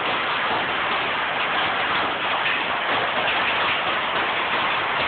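Heavy hail and rain pelting down, a steady dense clatter of countless small impacts.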